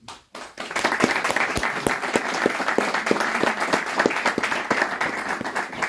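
Audience applauding after a closing thank-you, with individual claps clearly distinct, starting about half a second in.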